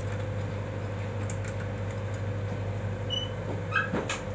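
A few light clicks and knocks from a twin fluorescent tube-light fitting being handled, its tube and starter worked in their holders, the loudest near the end. Under it runs a steady low hum.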